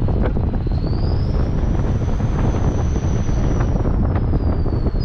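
Wind buffeting the microphone of a camera in a moving car, a steady low rumble with rapid flutter over road noise. A thin high whine glides up about a second in and back down near the end.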